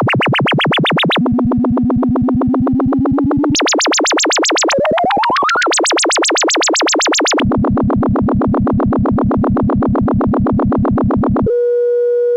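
Eurorack modular synthesizer patch demonstrating a Peaks-based modulation module: rapid pulsing synth tones, about ten a second, whose pitch and brightness jump between sections, with a rising pitch sweep midway. About a second before the end it switches to a steady held tone.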